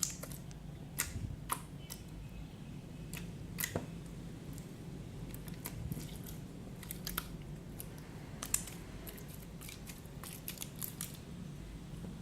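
Freshly made glitter slime being handled and squeezed by hand, giving irregular small clicks and pops. A steady low hum runs underneath.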